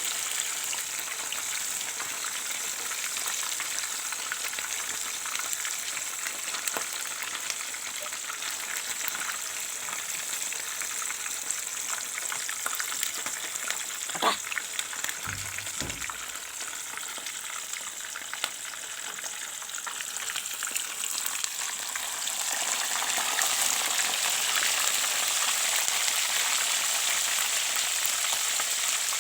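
Hot oil sizzling steadily as food deep-fries in a pan, getting louder about three-quarters of the way through. There is a single sharp click about halfway.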